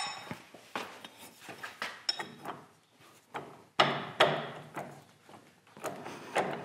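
A wrench and hands working on a Monarch lathe's spindle clutch assembly: a ringing metal clink at the start, then irregular metal knocks, clinks and scraping. The loudest knocks come about four seconds in.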